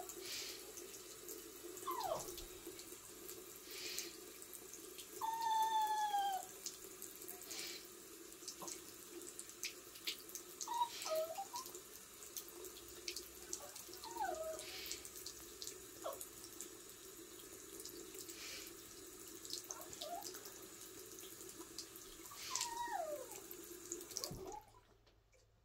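Thin stream of water running from a bathroom sink tap and splashing into the basin, with short high falling squeals several times over it. The running water cuts off about a second before the end.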